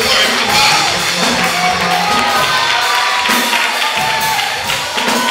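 Lively live church praise music with drums and percussion, with the congregation's voices over it.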